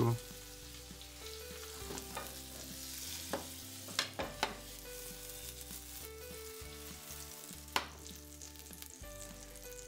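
Pancakes frying in butter in a nonstick pan, a steady sizzle. A few sharp knocks as the pan is moved around four seconds in, and another later on.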